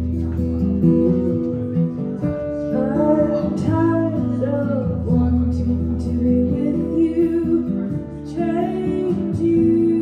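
Two acoustic guitars strummed and picked in a live song, with a woman's singing voice coming in for a phrase about three seconds in and again near the end.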